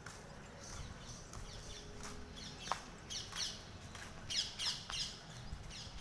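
Small birds chirping: clusters of short, high, falling notes, thickest from about two to five seconds in, with a single sharp click partway through.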